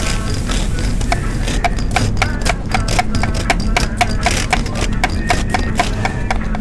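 Knife chopping on a cutting board in quick, even strokes, about four a second, over a steady low hum.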